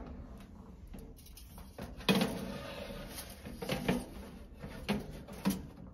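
Door of a small Moulinex countertop oven being opened and a foil-covered metal baking tray slid onto its rack: a sudden rattling clatter about two seconds in, then several sharp knocks of metal on metal.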